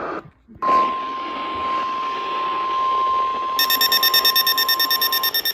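NOAA Weather Radio 1050 Hz warning alarm tone: one steady tone over radio hiss, the signal that a warning message follows. About three seconds in, a fast electronic beeping of about ten beeps a second joins it.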